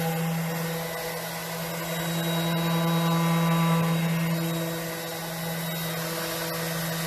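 Handheld electric power sander running steadily against a wooden bench, a constant motor hum under the rasp of sandpaper on wood.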